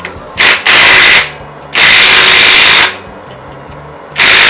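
Cordless impact wrench hammering on a socket and extension in four bursts, the longest about a second, trying to break loose a seized exhaust manifold bolt on a Pontiac 400 V8 whose threads have been treated with candle wax.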